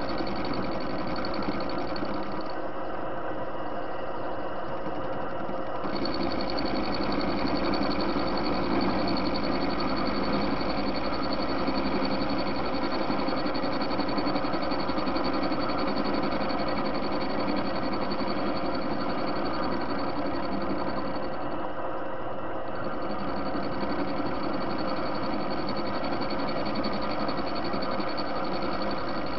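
Soviet TV-16 lathe running steadily, its motor and gear train giving a constant hum made of several fixed tones. A high tone in the sound drops out for a few seconds about three seconds in, and again briefly around twenty-two seconds.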